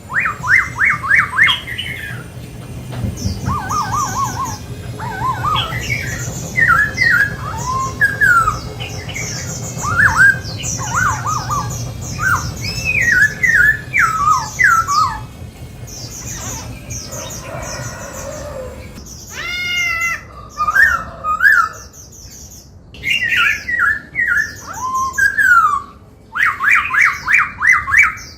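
Black-throated laughingthrush singing loudly: varied phrases of quick whistled notes and rapid trills, rising and falling in pitch, separated by short pauses.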